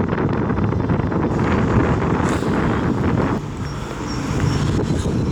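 Wind buffeting the microphone while riding: a steady low rushing noise that eases briefly a little past halfway.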